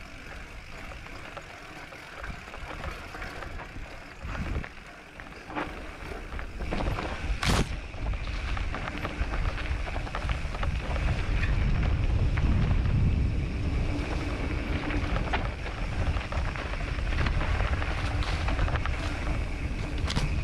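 Mountain bike rolling along a dirt singletrack: tyre and bike rattle noise with wind buffeting the camera microphone, growing heavier about seven seconds in. A few sharp knocks as the bike hits bumps, the loudest about seven and a half seconds in.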